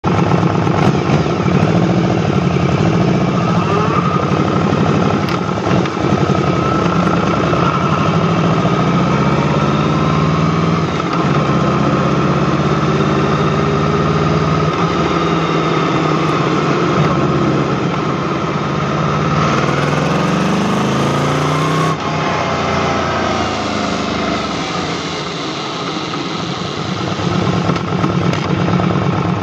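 Yamaha VMAX 1700's V4 engine running while the motorcycle rides along, heard from low by the rear wheel with steady wind and road noise. The engine note holds mostly steady and rises and falls a few times with the throttle, climbing clearly about two-thirds of the way in.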